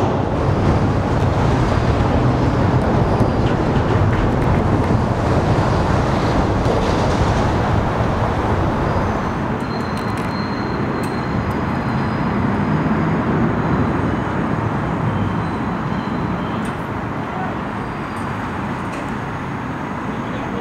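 Steady low rumble of engines and road traffic, with no distinct events; it eases slightly about halfway through.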